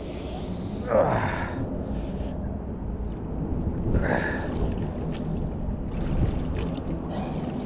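A man's breathy gasps and grunts of effort, twice, as he strains to haul up a very heavy load on a magnet-fishing rope, over a steady low background rumble.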